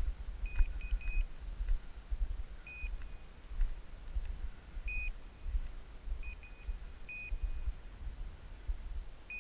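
Short high electronic beeps from a hunting dog's electronic collar, sounding singly and in quick doubles and triples at uneven spacing. A low rumble of wind on the microphone runs underneath.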